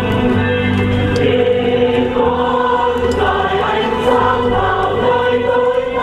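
Choir singing a slow song in long held notes over a steady low accompaniment.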